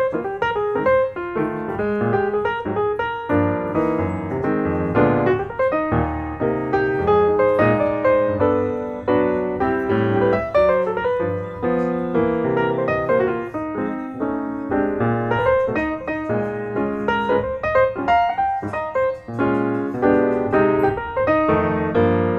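Background piano music: a steady run of notes with a melody over lower chords.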